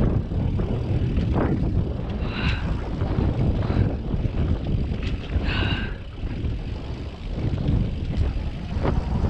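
Wind rushing over the microphone and tyres rolling on a dirt trail during a fast mountain bike descent, a steady rumble, with two short high squeals about two and a half and five and a half seconds in.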